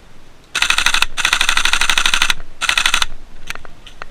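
Airsoft rifle firing on full auto: a long burst of rapid shots lasting nearly two seconds, then a short burst.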